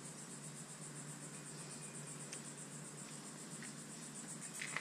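Faint, steady high-pitched chirring like insects, rapid and even, over a low hum. A few light clicks, the sharpest near the end, come as a flush adapter is threaded into an outboard's flush port.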